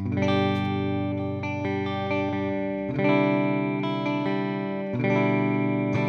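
Fender Jazzmaster Modern Player electric guitar with humbuckers playing a clean tone, with no chorus engaged: sustained, ringing chords, a new chord struck about every two to three seconds.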